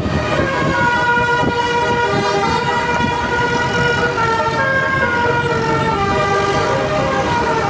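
Indonesian bus 'telolet' multi-tone air horn playing a tune of held notes that jump from pitch to pitch, over the low rumble of the bus engine.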